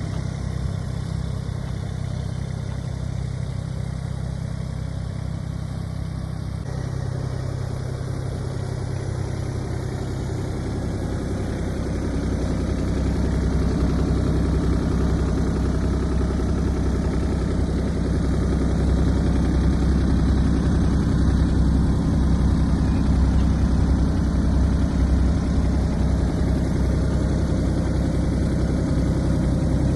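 Diesel engine of a Kubota U27-4 mini excavator running at a steady idle, growing louder about twelve seconds in and holding there.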